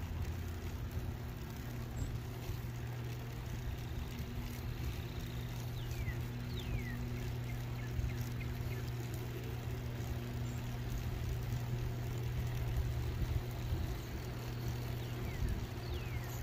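Steady riding noise from a small electric ride moving along a paved trail: a constant low hum over a noisy rush. A few faint high falling whistles come through about six to seven seconds in and again near the end.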